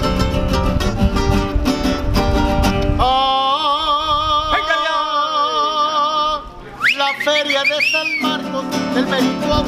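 Mexican trio music: two acoustic guitars and a guitarrón strum a rhythm. About three seconds in they stop under a long held vocal note with vibrato. A short phrase of rising vocal slides follows, and the strumming resumes near the end.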